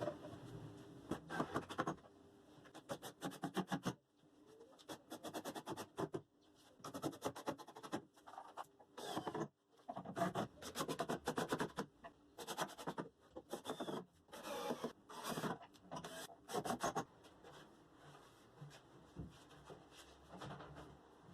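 Scraping and rubbing on wood in repeated bursts of quick strokes, each burst lasting a second or two with short pauses between them.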